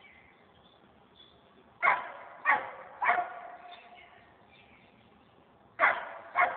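Dog barking: three loud barks about half a second apart, then two more near the end.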